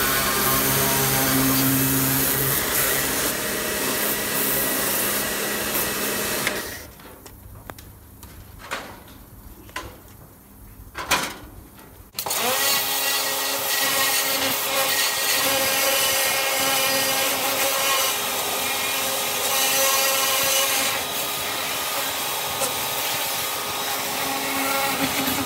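Pressure washer running, its motor and pump giving a steady hum under the hiss of the spray on the metal cage. About six and a half seconds in it cuts out, leaving a few knocks and clicks, and starts up again about twelve seconds in, running steadily after that.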